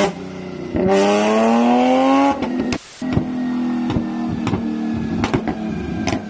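Nissan 370Z's V6 revved hard, rising in pitch for about a second and a half before the throttle snaps shut, then running on with a string of sharp exhaust pops and bangs. The bangs are backfires from a flame tune, throwing flames out of both tailpipes.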